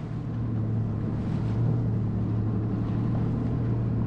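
Jet ski engine running steadily, a constant low drone with wind and water noise over it.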